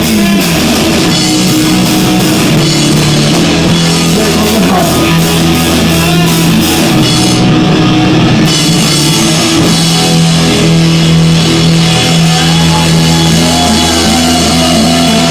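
Live rock band playing loud, with drum kit and guitar, recorded through an overdriven phone microphone, so the sound is distorted.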